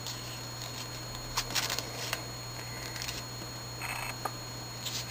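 A strip of paper being folded and creased by hand: a few soft, short rustles and crinkles of paper, over a steady low hum.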